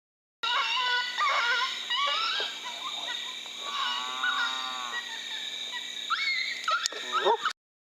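Coyotes yipping and howling in a chorus of short, high, rising and falling calls, with one longer arching howl in the middle and more yips near the end.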